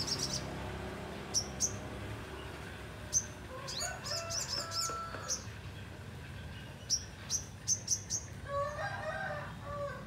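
Brown-throated sunbird (sogon) calling: sharp, high chirps, some single and some in quick runs of several. A lower, drawn-out call sounds in the background near the end.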